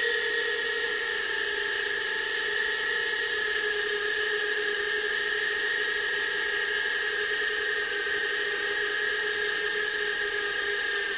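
JJRC H36 micro quadcopter's four brushed motors and ducted propellers held at high throttle on a thrust stand: a steady high whine over a hiss of air, its pitch sagging slightly as the thrust falls off with the draining battery.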